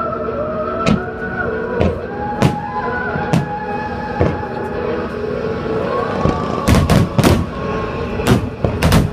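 Fireworks shells bursting, a dozen or so sharp bangs, coming in a quick cluster in the second half, over background music.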